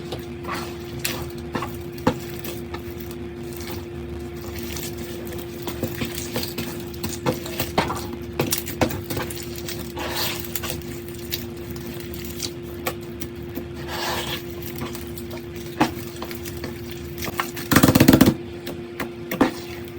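Slime with colored rice mixed in being squeezed and pressed, giving irregular sticky clicks and crackles. Near the end comes a short burst of dense crunchy crackling.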